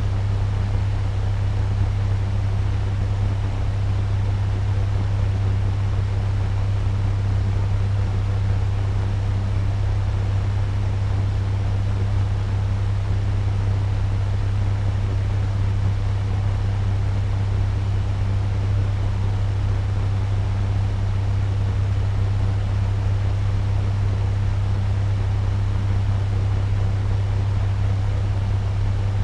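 Turbo fan running steadily at medium speed: an even rush of air over a strong, constant low hum.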